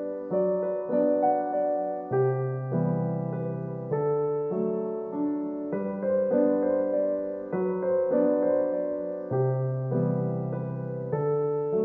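Background piano music: a gentle piece of notes and chords struck every half second or so, each ringing and fading.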